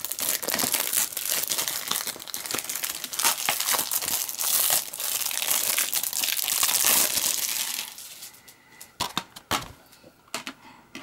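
Plastic shrink-wrap crinkling and tearing as it is peeled off a DVD case, dense for about eight seconds. Then come a few separate sharp clicks as the plastic case is handled and opened.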